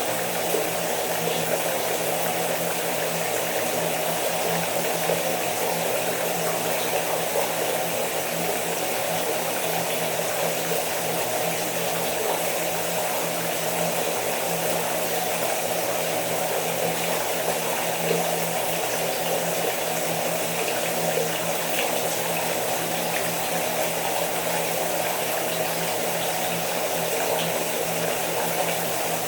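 Steady rain shower falling, an even hiss of water that does not let up, with a faint low hum beneath it.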